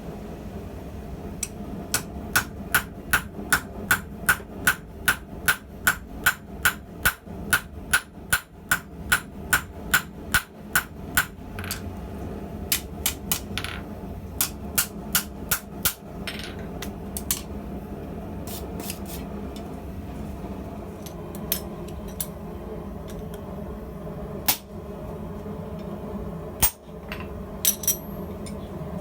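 Hand hammer striking hot steel on an anvil while forging a tong's jaw: a steady run of sharp blows, about two and a half a second, for some ten seconds. After that come slower, irregular blows, then only a few scattered ones.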